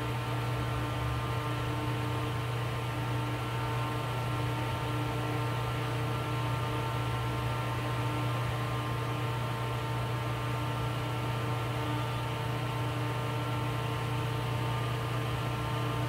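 A steady low hum with hiss and a few faint held tones above it, unchanging throughout with no separate events; no lion or other animal call stands out.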